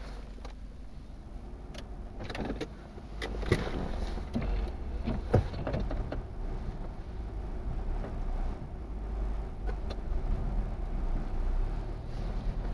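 Car engine idling, heard from inside the cabin as a steady low rumble. A cluster of sharp clicks and knocks from inside the car comes a couple of seconds in.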